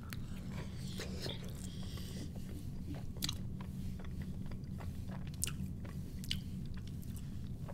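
Chewing a bite of thin, crispy pizza crust: sporadic crunches and wet mouth clicks over a steady low hum.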